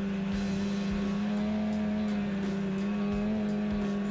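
Polaris snowmobile engine running at a steady, high, nearly constant pitch while the sled cruises along a groomed trail, with occasional low thumps.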